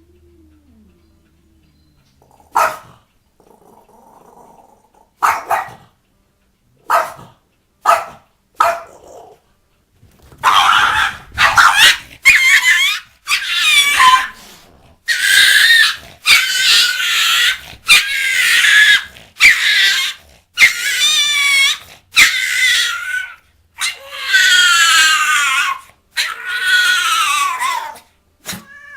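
A dog vocalising: a few short, sharp barks spaced out at first, then from about ten seconds in a string of about a dozen longer, high-pitched calls with a wavering pitch, each lasting around a second.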